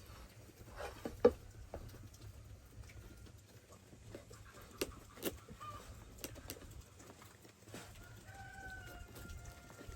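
Scattered knocks and clicks, the sharpest about a second in. Near the end a bird gives a short, steady call lasting about a second.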